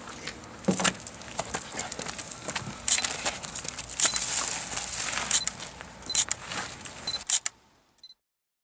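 Rustling and handling noises, then a Sony camera taking several shots, each shutter click paired with a short high beep. The sound falls away to silence near the end.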